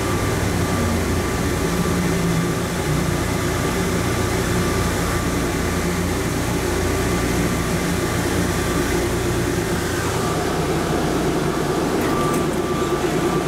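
Plane Train automated people mover car running through a tunnel: a steady rumble with a faint motor whine, easing near the end as it slows into a station.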